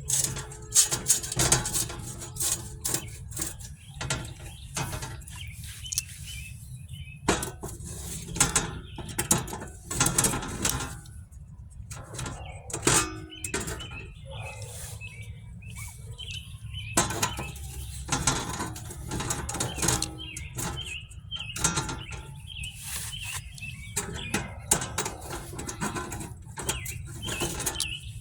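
Irregular clicks and knocks of small parts being handled and fitted, with birds chirping in the background, more often in the second half.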